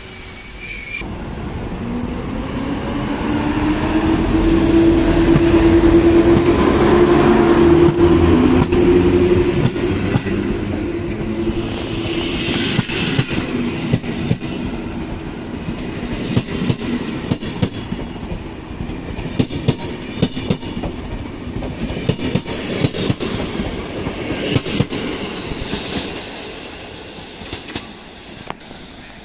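PKP Intercity passenger coaches rolling past and pulling away: a low rumble and hum swells for the first several seconds, then gives way to a long run of rhythmic clacking as the wheels cross rail joints, with brief higher wheel squeals. It fades near the end as the last coach moves off.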